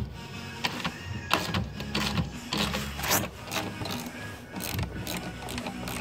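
Hand ratchet clicking in short irregular runs as it is worked back and forth on a bolt in a radiator.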